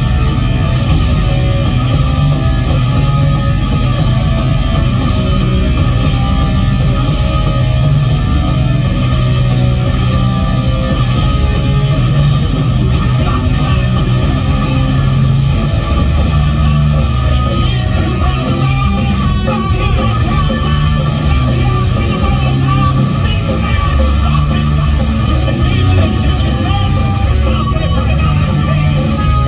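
Punk rock band playing live, loud and steady: distorted electric guitars over bass and drums.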